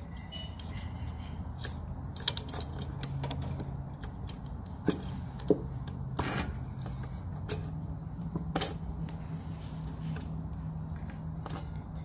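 Scattered clicks and light rattles of plastic parts and wire connectors being handled and pushed onto a mini fridge compressor's terminal pins, over a steady low hum.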